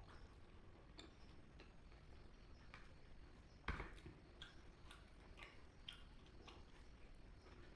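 Quiet eating sounds: chewing and small mouth clicks, irregularly spaced, with one louder knock a little under four seconds in.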